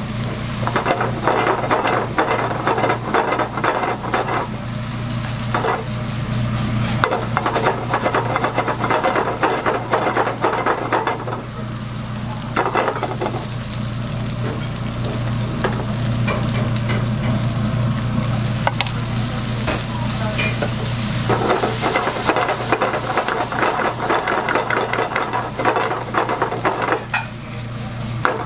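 Egg frying and sizzling in a hot pan, with a utensil stirring and scraping against the metal in many small clicks, over a steady low hum.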